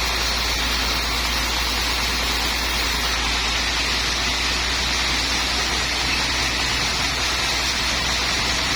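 Sawmill machinery running steadily: an even rushing noise over a constant low hum, with no change in pace or load.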